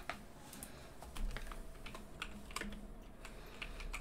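Typing on a computer keyboard, heard faintly as a scattered run of irregular key clicks.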